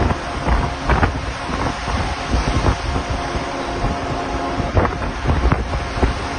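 Strong wind buffeting the microphone in uneven gusts, over the rush of breaking sea waves.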